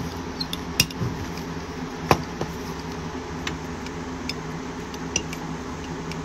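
Scattered sharp clicks and taps of small hard pistol parts being handled and fitted while a pistol's fire control group is installed, the two loudest about one and two seconds in.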